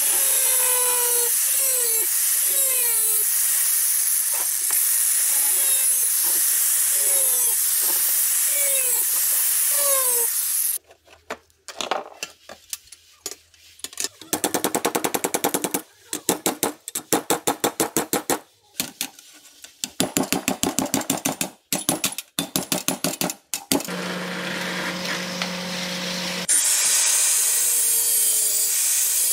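A steady hiss for about ten seconds, then a power tool chattering rapidly in short spurts with pauses between, a brief steady hum, and the hiss returning near the end.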